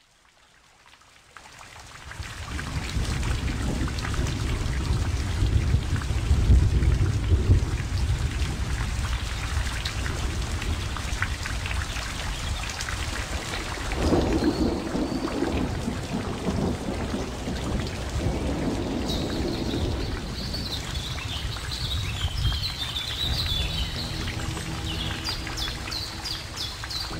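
Wind buffeting the microphone as a heavy, unsteady low rumble. Birds chirp from about two-thirds of the way in.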